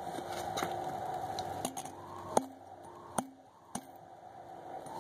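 Close handling noises: about five sharp clicks and light knocks, the loudest about halfway through, a few followed by a short low ring, over a faint steady hum.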